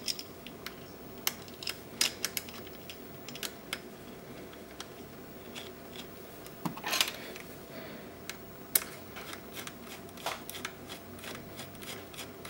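Small metal clicks and clinks of a ring terminal, bolt and nut being fitted by hand onto a lead-acid battery's positive terminal clamp and tightened with a screwdriver, with a brief louder clatter about seven seconds in.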